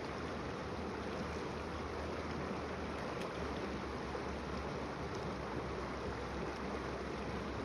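Shallow, fast-flowing creek water rushing steadily over rocks.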